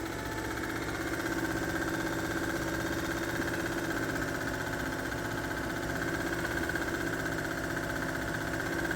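A 1946 Singer sewing machine running under its electric motor, freshly oiled, picking up speed over about the first second and then running steadily with a fast, even mechanical hum.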